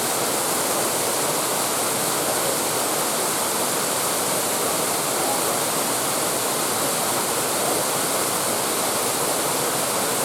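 Stream water rushing over the rocky cascades below a waterfall: a steady, even rush with no breaks.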